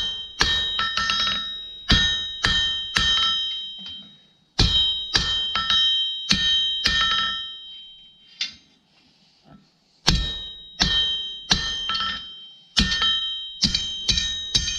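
Hand hammer striking hot steel on an anvil, about two blows a second, each blow leaving the anvil ringing. The blows come in three runs, with a short break about four seconds in and a longer lull in the middle; these are half-on, half-off blows drawing out material for a tong jaw.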